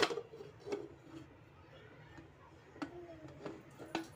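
Aluminium pressure cooker lid being fitted and closed onto the pot: a sharp metal clink at the start, then lighter knocks and scrapes with short metallic ringing, picking up again near the end.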